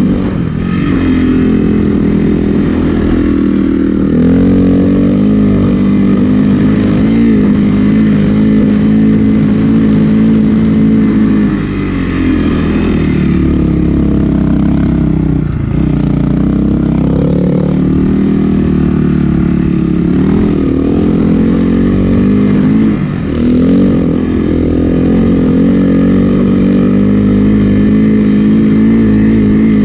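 Snowbike's dirt-bike engine running under load while riding up a snowy trail. Its pitch dips and climbs back several times as the throttle is eased and reapplied.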